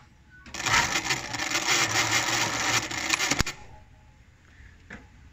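Highlead GG0028 industrial zigzag sewing machine running a 25-stitch automatic cycle: rapid, even stitching for about three seconds, then it stops with a sharp click as the automatic thread trimmer cuts the thread.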